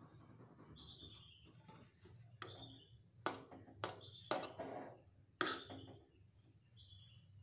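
Metal spoon stirring fried rice in a metal wok, with a few sharp clinks and knocks against the pan in the middle. Short, high bird chirps sound now and then in the background.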